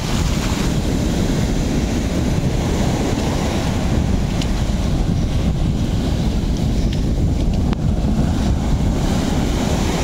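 Ocean surf breaking and washing up the beach, with wind buffeting the microphone in a steady low rumble.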